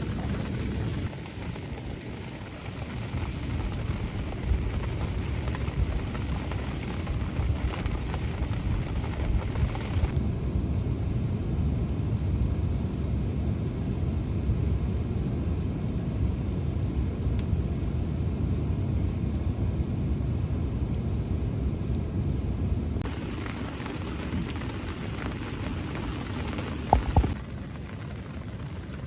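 Steady rain falling, a dense patter with a heavy low rumble, shifting abruptly in character a few times. There is a brief sharp knock near the end.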